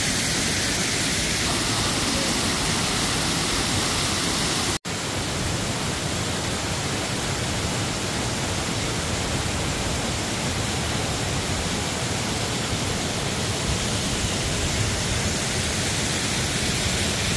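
Steady rushing of a waterfall and the creek cascading over rocks below it, cut off for a split second about five seconds in.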